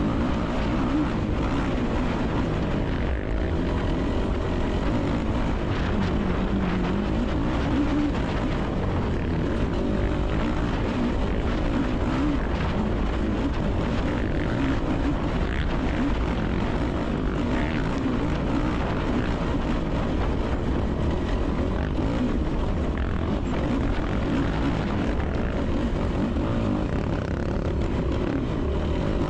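Yamaha YFZ450R's single-cylinder four-stroke engine running hard at race pace, its pitch rising and falling as the throttle is worked, heard from on board the quad.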